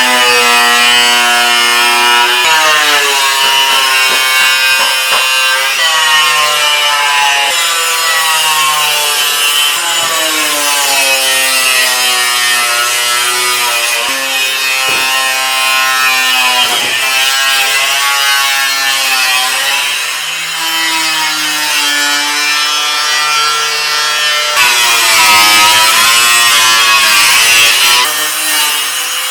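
Handheld power tool cutting through a car's sheet-metal fender, its motor pitch sagging and recovering as it bites into the metal.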